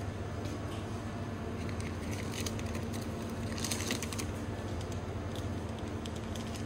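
Steady low hum of a shop's room tone, with a few faint scattered clicks and ticks, a small cluster of them about two and a half to four seconds in.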